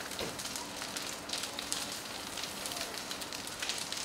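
House fire fully engulfed in flames, burning with a steady hiss and frequent sharp crackles and pops.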